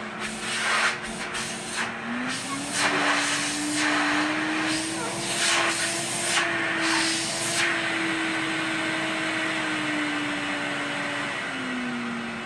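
Electrolux Renaissance canister vacuum running: a steady motor whine that rises in pitch about two seconds in and falls back near the end. Through the first seven seconds or so there are repeated strokes of loud rushing air and brush noise.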